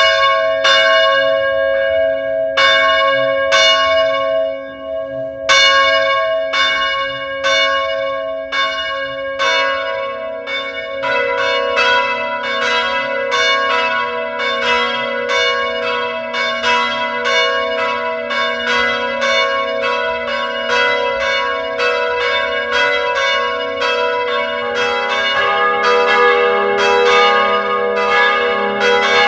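Church bells ringing, struck again and again, each stroke ringing on. The strokes come a little under a second apart, with one short pause about five seconds in; then more bells join, the strokes come faster and overlap, and lower-pitched bells come in near the end.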